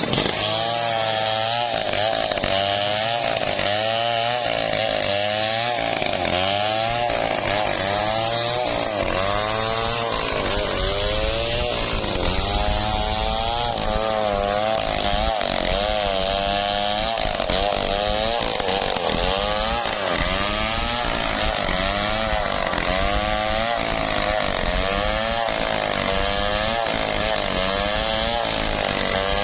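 Stihl MS 070, a large two-stroke chainsaw, running hard with its engine pitch dipping and recovering about once a second, as it does while cutting teak under load.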